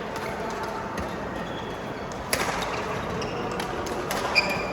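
Badminton rally: sharp cracks of rackets hitting a shuttlecock, several about a second apart, the loudest near the end. Short high squeaks, likely shoes on the court floor, come with the last hits, over a murmur of background voices.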